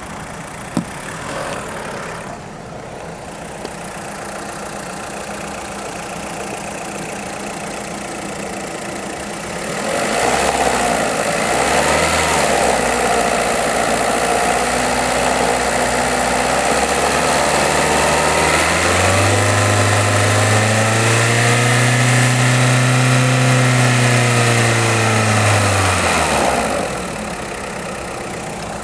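VW Polo 6N2 1.4 16V petrol engine idling, with the clacking from the engine block that the owner hears at idle. About ten seconds in it is revved up slowly, held at higher revs, and drops back to idle near the end; the owner says the clacking stops when he accelerates.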